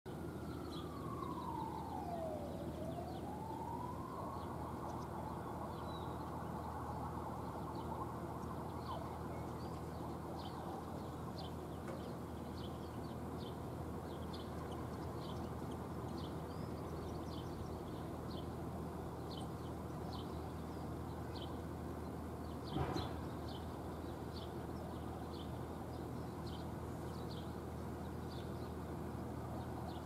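Steady city background hum from distant traffic. In the first few seconds a wailing tone slides down in pitch and back up. Faint short high chirps recur throughout, and one brief louder sound comes about 23 seconds in.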